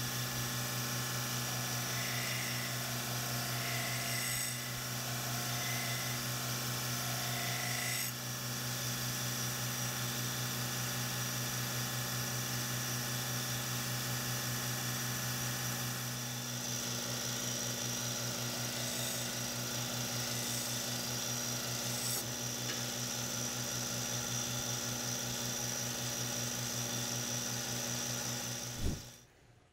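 Belt grinder running steadily, its electric motor humming under the hiss of the moving belt, while the edge of a single-bevel sashimi knife is ground on it. The sound cuts off abruptly near the end.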